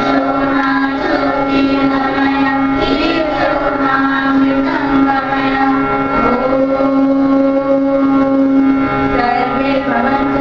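A group of children singing in unison over a steady held drone note.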